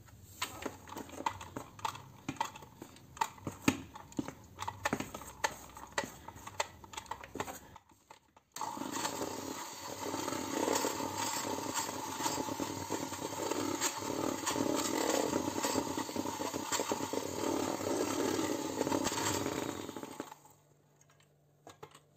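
A run of sharp clicks and crackles as a plastic sachet of instant coconut milk is squeezed out over a steel mixing bowl. Then an electric hand mixer starts, its beaters whirring steadily through thick cake batter for about twelve seconds before it is switched off.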